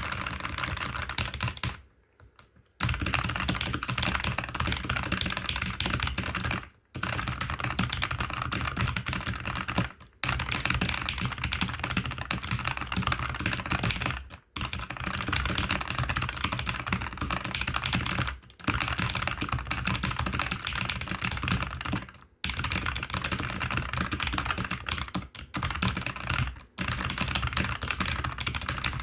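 Fast typing on a Keychron K5 Max low-profile mechanical keyboard with low-profile Gateron red linear switches. A dense stream of keystrokes breaks off in brief pauses about every four seconds.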